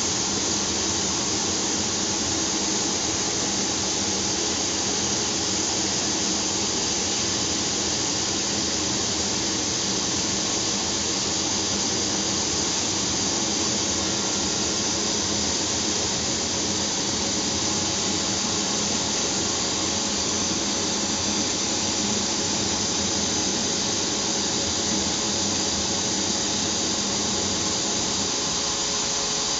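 Large-pot sanding machine running steadily, sanding a metal cookware pot: a continuous dense hiss and whine with a few steady hum tones under it, at an even level.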